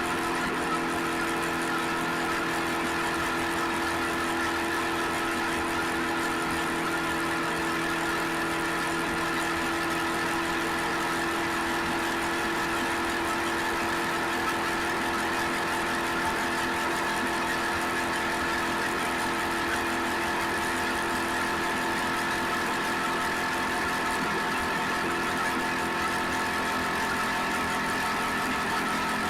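Suzuki SV650X V-twin motorcycle engine running at a steady engine speed, with no change in pitch.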